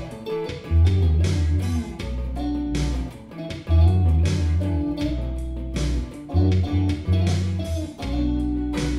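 Background music: a guitar-led instrumental with bass and a steady beat.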